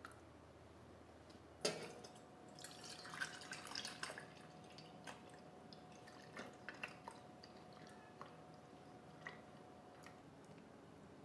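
Faint kitchen handling sounds: a sharp click, then scattered light clicks, taps and drips. A faint steady hum starts with the first click and stops shortly before the end.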